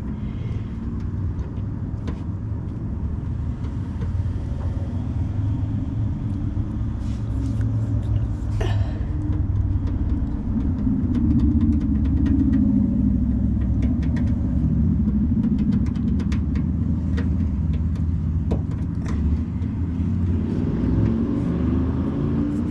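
Steady low rumble with scattered faint clicks and taps, louder through the middle.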